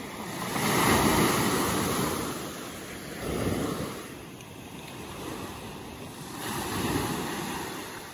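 Small waves breaking and washing up a sandy beach on a calm sea. The surf swells and fades three times, each rush rising and dying away over a couple of seconds.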